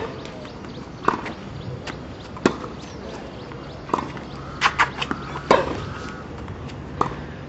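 Tennis rally: the sharp pops of a tennis ball struck by rackets and bouncing on the court, roughly every one to one and a half seconds, with a quicker run of knocks about halfway through.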